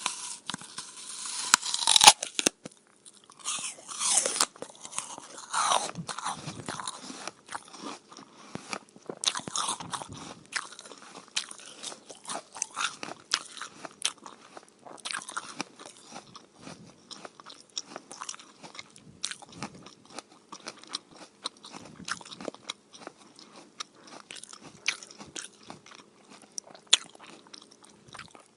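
A person biting into and chewing a crisp apple: sharp crunchy bites, the loudest in the first few seconds, then steady wet crunching as the pieces are chewed.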